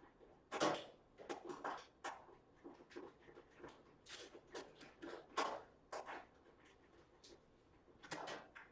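Irregular clicks and light knocks of metal stove parts and screws being handled and fitted during reassembly of an electric stove, a few sharper knocks standing out, the loudest about five and a half seconds in.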